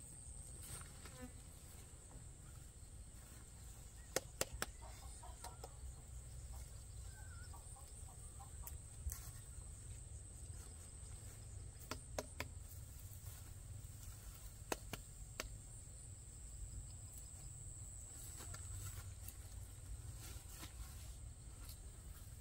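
Quiet field ambience: a steady high whine of insects, which drops out near the end, and faint bird calls. A few sharp ticks and rustles come from footsteps in the grass and watermelons being lifted.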